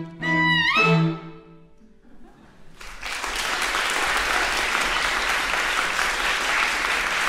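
A small chamber ensemble of clarinet, horn, two violins, viola and cello plays its final notes, one line sliding upward, and stops about a second in, the sound ringing away in the hall. After a short hush, the audience breaks into steady applause.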